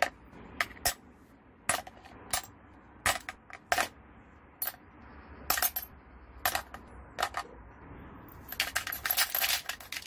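Small metal angle-grinder parts (gears, bearing plates, screws) dropped one at a time into a plastic tub, each landing with a sharp clink against the plastic and the parts already inside. Near the end a quick run of rattling clinks as several small parts go in together.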